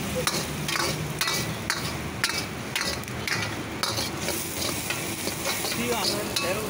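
Shredded vegetables sizzling in a hot iron wok while a steel ladle stirs them, scraping and clanking against the wok about twice a second, less often in the second half.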